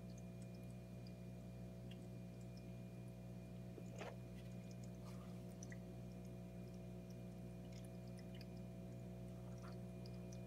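Steady low electrical hum from running aquarium equipment, made of several held tones, with faint scattered ticks and one brief rustle about four seconds in.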